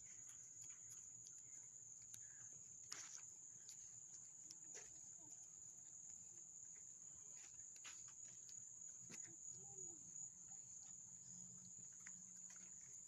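Faint, steady, high-pitched insect drone in wooded parkland, unbroken throughout, with a few soft ticks.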